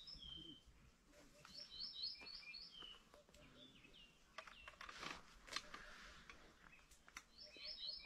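Faint songbird chirping: a quick run of high chirps about two seconds in and another near the end, with a few faint clicks or rustles between them.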